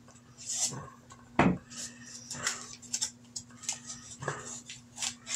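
Scissors snipping open a padded bubble mailer, with crinkling of the paper and plastic as the package is handled: a string of short scrapes and crinkles, the sharpest about a second and a half in.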